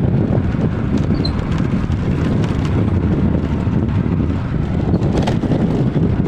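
Wind buffeting the microphone while riding a motorcycle along a dirt track, a steady low rumble with the bike's running underneath.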